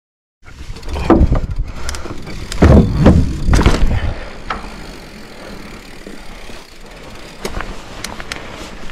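Mountain bike being ridden over rough dirt trail: a run of heavy knocks and rattles from the bike in the first few seconds, then steadier rolling tyre noise with occasional clicks.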